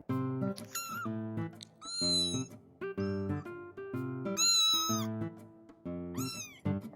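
A month-old kitten meowing, about four high-pitched mews, the loudest a little past the middle, over background music.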